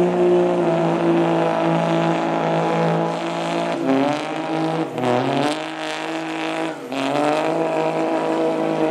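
Diesel Ram heavy-duty pickup's engine running hard under load as it drags a pulling sled. The engine note falls sharply and then climbs again three times, about four, five and a half and seven seconds in.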